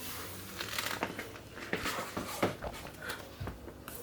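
Irregular crinkling and rustling with small sharp clicks, like something being handled close to the microphone.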